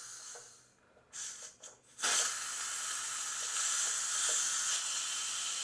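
Stovetop pressure cooker's steam-release valve opened by hand: a sudden, steady hiss of escaping steam starts about two seconds in, venting the pressure left after cooking.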